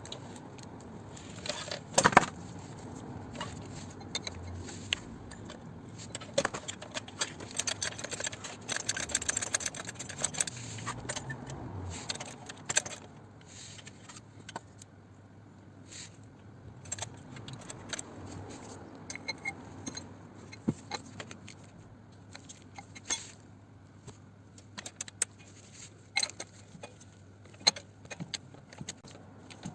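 Metal tools and parts clinking and knocking as they are handled, in irregular clicks, with a sharp knock about two seconds in and a dense run of clicks around the middle.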